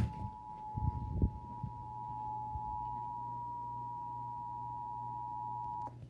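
Emergency Alert System attention signal from a television's speaker: two steady tones sounded together, announcing a flash flood warning, cutting off suddenly just before the end. A few low bumps about a second in.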